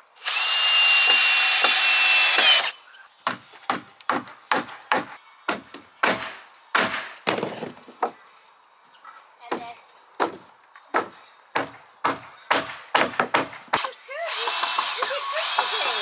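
A power drill driving a screw into wood framing, running with a steady whine for about two seconds. A long series of sharp, separate hammer blows on wood follows. The drill starts again near the end.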